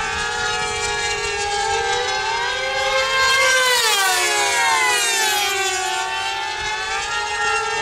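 Two model racing airplanes' small engines whining at high revs, their pitches sliding up and down as the planes circle the course, with a sharp rise and fall about three and a half to four seconds in as one passes close.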